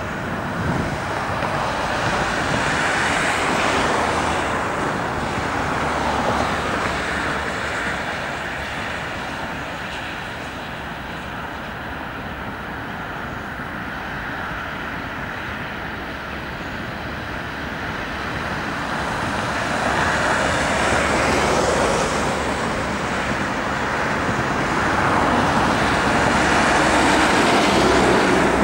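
Traffic noise from passing vehicles: a steady hum that swells and fades three times, loudest near the end.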